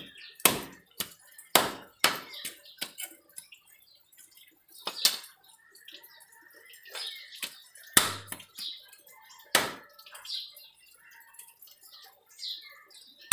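Knife scraping the scales off a large fish, a series of sharp, scratchy strokes at an uneven pace, some loud and some light.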